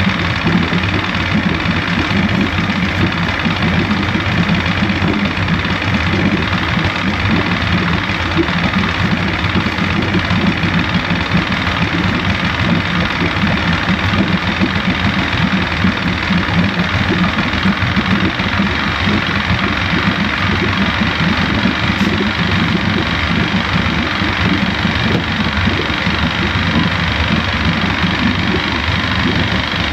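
1973 Johnson 65 hp two-stroke outboard motor running steadily after a no-start repair.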